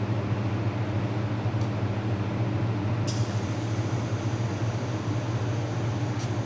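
Fiber laser welding machine running with a steady low hum, broken by a few sharp clicks; from about halfway a faint high hiss joins in.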